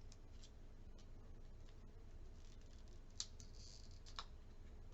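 Faint handling of a new Square Stand: two sharp little plastic clicks about three and four seconds in, with a short faint rasp of protective film being peeled between them.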